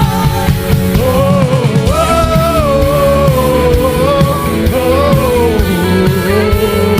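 Live worship band playing with a full rock-style backing and a regular beat, with a single sliding, held melody line carried over it and no words.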